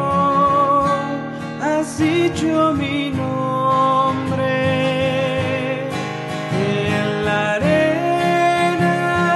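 A woman singing a Spanish hymn over a strummed steel-string acoustic guitar, a Taylor fitted with a capo, moving through C, D7 and G chords.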